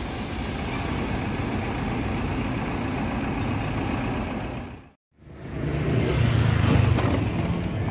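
Street ambience dominated by a motor vehicle's engine running steadily. The sound drops out for a moment about five seconds in, then a louder low engine hum continues.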